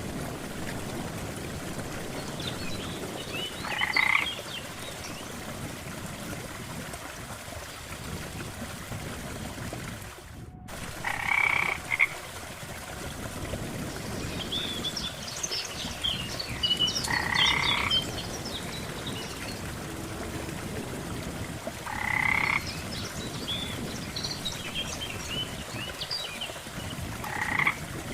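Frogs croaking at a lake: five short croaks, one every five or six seconds, with bursts of high chirping calls between them over a steady background hiss. The sound drops out briefly about ten seconds in.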